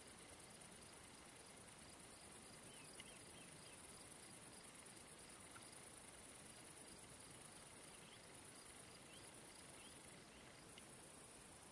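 Faint, steady high-pitched trilling of crickets in a summer meadow, with a second, lower insect call repeating in short even pulses and a few faint short chirps now and then.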